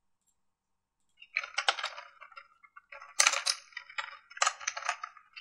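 Computer keyboard being typed on, in quick bursts of sharp key clicks that start a little over a second in.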